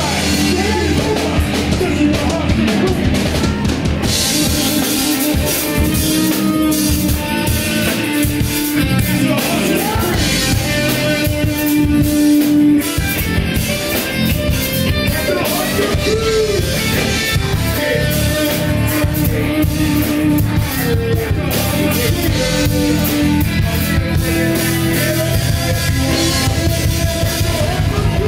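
Live rock band playing: electric guitar over a driving drum kit.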